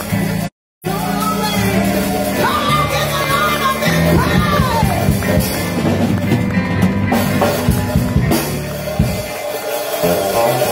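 Live gospel music: a woman singing into a microphone over a band with drums and bass. Her voice is plain in the first half and falls back past the middle while the band plays on. The sound cuts out completely for a moment just under a second in.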